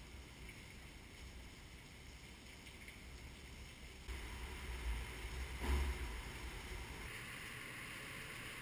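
Storm wind blowing through an open parking garage as a tornado passes nearby, heard as a low rumble with hiss on the microphone. It grows stronger about four seconds in, with one sharp gust just before six seconds.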